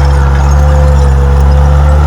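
Komatsu D31P bulldozer's diesel engine running steadily: a deep, even drone with a thin steady whine above it.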